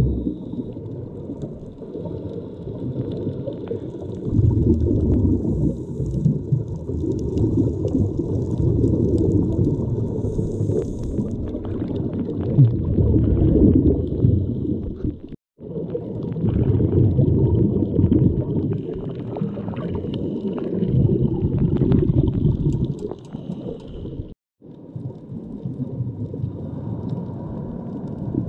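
Water noise picked up by a GoPro HERO7 underwater while snorkeling: a loud, muffled, low rushing and gurgling. The sound cuts out completely for a moment twice, just past the middle and near the end.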